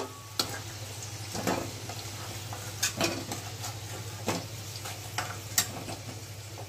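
Potato pieces sizzling in hot oil in a metal kadai while a metal slotted spatula scoops them out onto a steel plate, giving several sharp clinks of metal on metal over a faint steady sizzle.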